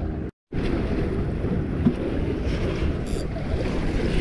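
Wind buffeting the microphone over sea water washing against a concrete breakwater, a steady rushing noise with a brief total dropout near the start.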